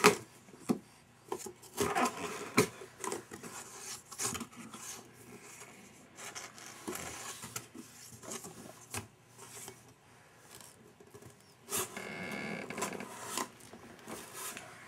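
Cardboard diaper box being scratched, patted and rubbed by a baby's hands: scattered taps and scrapes, with a sharp knock at the start and a longer stretch of rubbing near the end.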